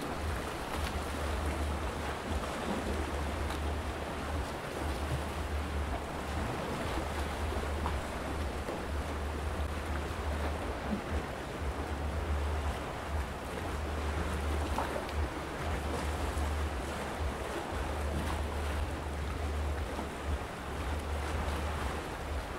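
Gentle sea waves washing on a rocky shore, a steady wash with no break. A low, fluttering rumble of wind on the microphone runs underneath.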